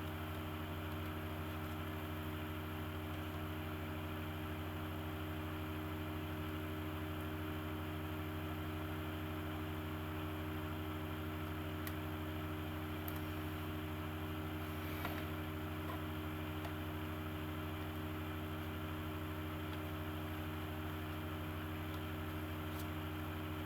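Steady low electrical hum with a faint hiss of room tone, broken only by a couple of faint clicks about midway.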